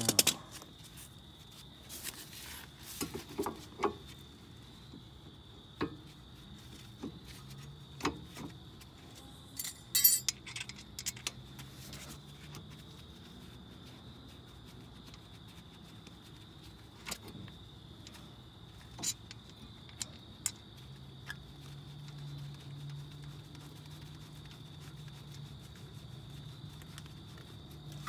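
Occasional metallic clinks and rattles of hand tools and brake parts being handled, with a quick cluster of louder clinks about ten seconds in.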